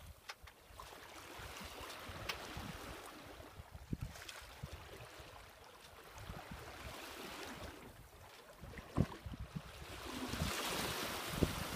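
Water washing along the hull of a sailboat moving slowly under sail, with wind buffeting the microphone. The rush of water grows louder near the end.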